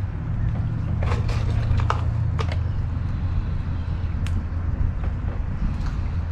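A steady low rumble with a few scattered light clicks and ticks, as fishing tackle is handled at close range.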